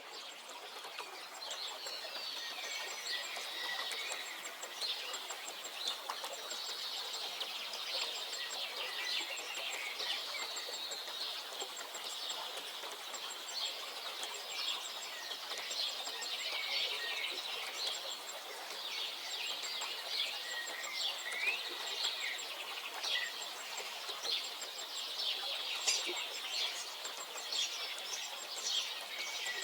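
Several songbirds singing at once in a continuous chorus of high chirps and trills, with a faint, very high ticking call repeating steadily behind them.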